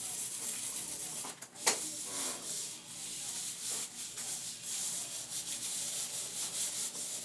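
Gloved hands rubbing and scrubbing shampoo through hair: a scratchy rubbing that rises and falls with the strokes. A single sharp click comes about one and a half seconds in.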